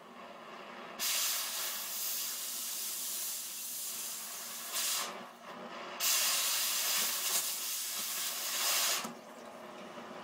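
Oxy-acetylene cutting torch hissing steadily. Twice, about a second in for some four seconds and again about six seconds in for three, a much louder hiss starts suddenly and then stops: the cutting-oxygen jet blowing through the metal, throwing sparks.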